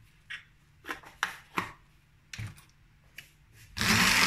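A few light clicks and knocks, then, near the end, an electric stick blender switches on and runs steadily in a pan of milky white sauce, a loud whirring with a steady motor hum.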